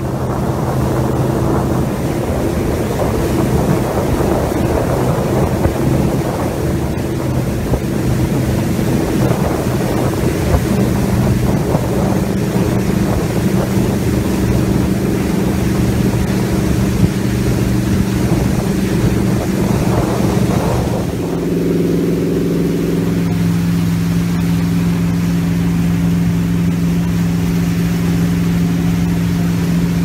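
Regal 2500 motorboat's engine running under way, a steady hum with water rushing past the hull and wind on the microphone. About two-thirds of the way through the engine note steps up to a higher pitch and holds there.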